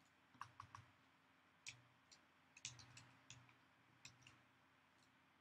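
Near silence broken by about ten faint, scattered clicks of a computer mouse, some in quick pairs.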